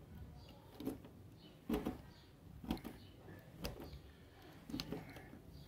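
Faint clicks and rubs of stripped copper wire ends being twisted together by hand, with pliers being handled, coming about once a second.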